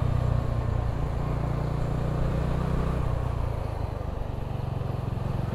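Bajaj Dominar 400's 373 cc single-cylinder engine running steadily under way in fourth gear, with a freshly replaced clutch plate. Its level eases off a little in the second half.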